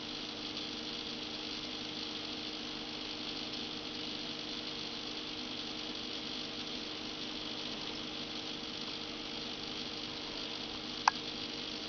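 Steady hum of running aquarium equipment, two low tones under a hiss. A single sharp click about eleven seconds in.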